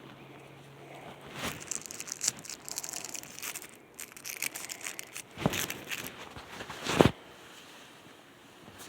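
Packaging being handled during an unboxing, crinkling and rustling, with two heavier thumps later on, the second the loudest.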